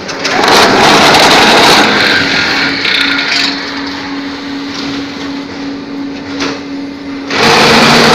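Multi-block concrete paving block machine running: a steady motor hum, with loud stretches of rattling noise from its vibrating mould table, one lasting about two seconds at the start and another starting near the end.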